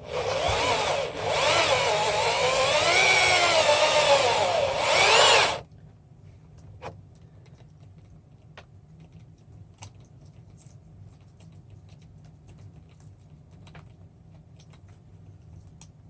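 Handheld electric drill boring through thin plexiglass at low speed, its pitch rising and falling as the trigger is feathered to keep it slow. It stops suddenly about five and a half seconds in, followed by a few faint clicks.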